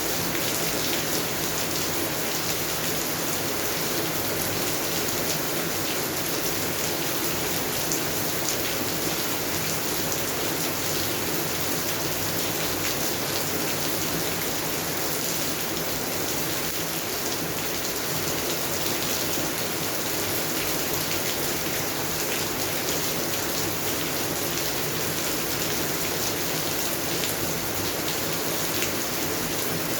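Steady rain falling on garden plants and the ground, with many fine drop patters and an even hiss, unchanging throughout.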